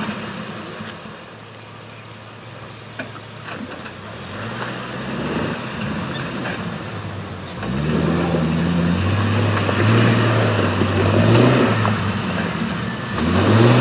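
Jeep Wrangler TJ engine working off-road. It is low at first, then from about eight seconds in it runs louder and revs up and down several times, with a few faint knocks earlier.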